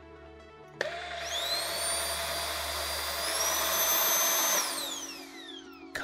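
Deenkee cordless stick vacuum switched on about a second in: its motor spins up with a rising high whine over a rush of air, climbs a step higher in pitch about halfway, then is switched off and winds down with a falling whine.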